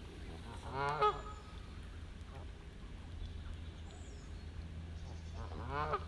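Geese honking: two short honks, one about a second in and another near the end, over a steady low rumble.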